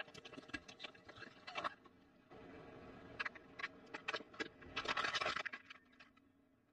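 Hard plastic crackling and clicking in short irregular bursts, densest about five seconds in, with a faint steady hum under the first two seconds.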